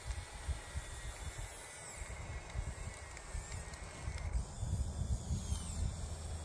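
Small electric motors and gears of a converted Bruder RC excavator working, with a fluctuating low rumble underneath that grows stronger a little past halfway.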